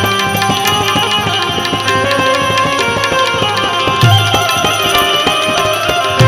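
Tabla played in a fast passage: dense quick strokes on the small right-hand drum, with deep, ringing bass strokes on the left-hand bayan about four seconds in and again near the end.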